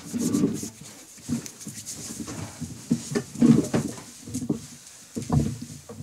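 Low, indistinct men's voices murmuring in short snatches, with faint handling clicks.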